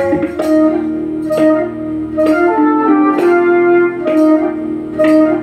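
Instrumental interlude of a live devotional bhajan: a melody instrument plays held notes, a new note starting about once a second, with no singing.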